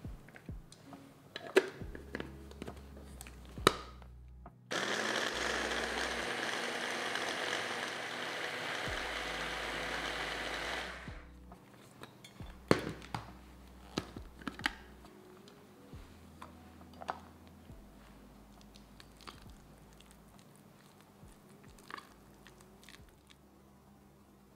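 Electric mini chopper grinding pieces of orange into a pulp: the motor starts abruptly about five seconds in, runs steadily for about six seconds, then stops. Scattered light clicks and taps come before and after it.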